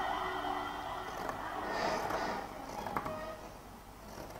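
Steady background traffic noise, with a siren's held tones fading out over the first second or two. A single sharp click about three seconds in.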